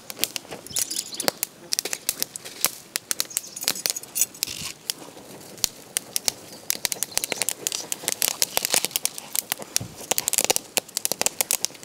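Corn cobs roasting on glowing charcoal, crackling with many irregular sharp pops, while a hand fan flaps air over the embers.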